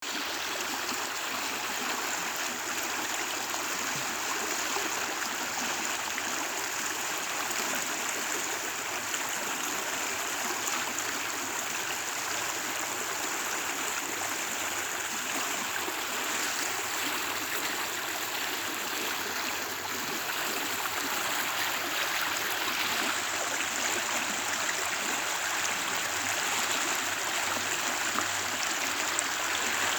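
A lively creek flowing over rocks: a steady rush of running water with gurgling.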